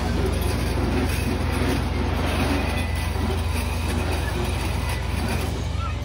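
Funhouse moving floor of spinning metal rollers, running with a steady mechanical rumble and a fast, even rattle.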